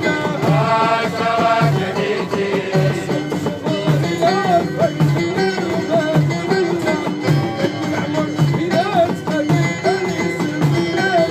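Live folk music: a steady low drum beat under a melody that bends and slides in pitch.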